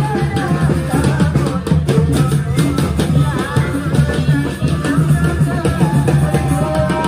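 Ale-ale street band music: steady, driving drumming with a keyboard melody over it.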